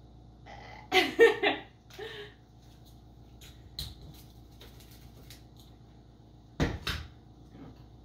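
Small electric coffee grinder being handled on a counter, with a few light clicks and then two sharp knocks just before seven seconds in. The grinder motor does not run. About a second in, a short, loud wordless vocal sound.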